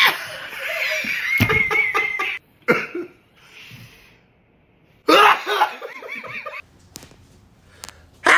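A person sneezing several times in sudden bursts, with laughter in between.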